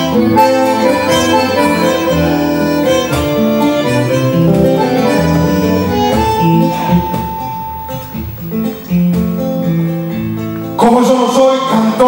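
Live instrumental Argentine folk music from bandoneon and violin, playing held melodic notes. The music thins out and then swells again near the end.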